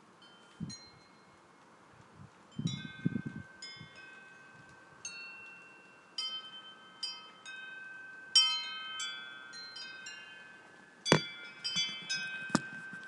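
Metal wind chimes struck irregularly by the wind, their bright ringing tones overlapping and dying away. There are a few dull low bumps in the first few seconds and two sharp knocks near the end.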